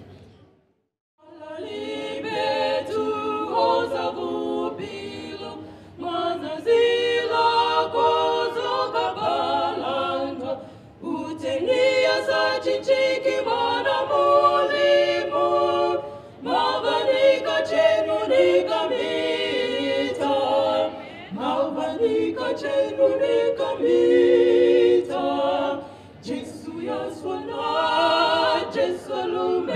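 A trio of women's voices singing a cappella in harmony through microphones. The singing starts after a second of silence and goes on in phrases a few seconds long.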